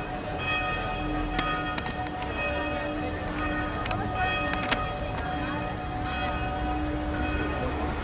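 Church bells ringing, several overlapping tones hanging on steadily, with a few sharp clicks through it.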